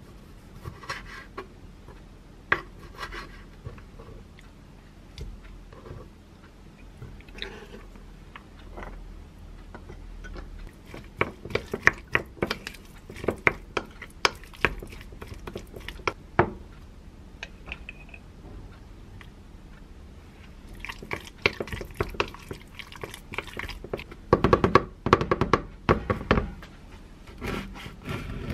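Kitchen food-prep sounds: a knife cutting cherry tomatoes against a wooden chopping board in scattered taps, then a wooden spoon stirring and knocking in a glass bowl of mashed avocado filling in a quick run of clicks and scrapes. Near the end come louder knocks and scrapes as a serrated bread knife cuts into a ciabatta loaf on the board.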